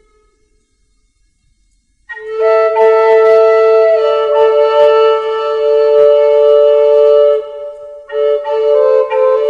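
Background flute instrumental in a native-flute style. After about two seconds of quiet, the flute plays long held notes, breaks off briefly near the end, then goes on with shorter notes.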